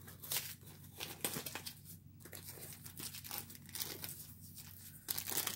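Plastic mailing package being torn open and handled: a run of irregular crinkles and crackles, growing louder near the end.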